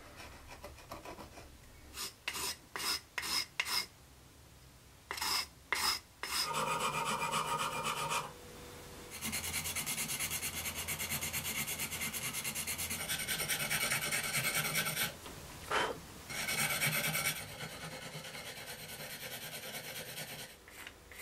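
Sandpaper rubbing against the edges of a cured carbon-fibre part to smooth them. A handful of short separate strokes comes first, then long stretches of steady, rapid scraping that ease off near the end.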